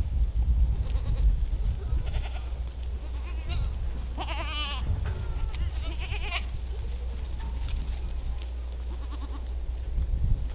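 Goats bleating: several short, wavering bleats, the loudest lasting about a second midway, over a steady low rumble.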